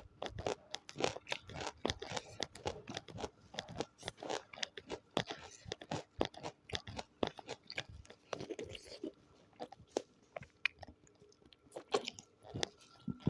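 Close-miked eating: a dense run of crunches and wet chewing, with sharp bite clicks, thinning out for a moment about eight seconds in.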